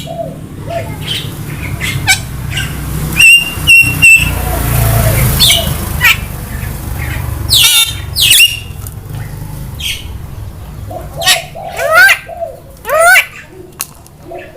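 Javan myna (jalak kebo) calling in a varied string of squawks and whistles, among them three short steady beeps about three seconds in and several sharp rising sweeps later on.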